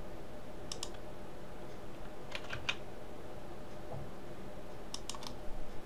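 A few computer keyboard keystrokes, single and in quick pairs, about a second in, around two and a half seconds in and near the end, over a faint steady hum.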